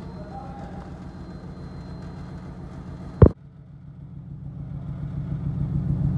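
Steady car engine running, broken by one sharp loud knock about three seconds in; after it, a Nissan 350Z's 3.5-litre V6 runs at the exhaust tip, growing steadily louder.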